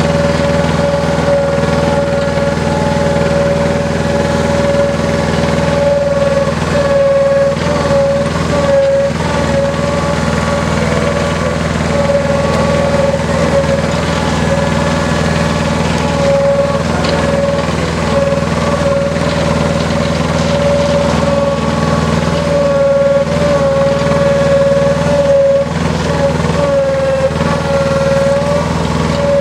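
Engine of a small Dando tracked drilling rig running steadily as the rig crawls through mud. A steady high whine sits over the engine's low drone and dips briefly in pitch now and then.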